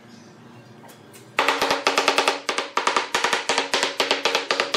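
Claw hammer tapping rapidly on end-grain wooden slices, knocking them down into place in a tabletop panel. The taps start suddenly about a second and a half in and come several a second, with a ringing tone under them.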